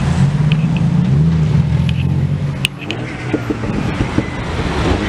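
Cars driving slowly past close by, their engines running at low revs with a deep, steady note that rises slightly about a second in. About three seconds in this gives way to a rougher sound with a run of short crackles.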